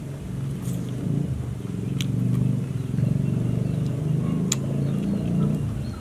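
A motor engine running steadily, its low hum swelling over the first few seconds, with a few sharp clicks over it.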